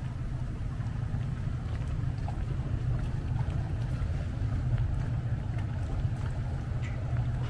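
Steady low rumble of idling machinery aboard moored motor yachts, even in loudness throughout.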